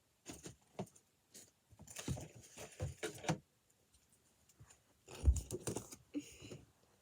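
Plastic monkey noodle fidget toys being handled, rustling and clicking in three short bursts.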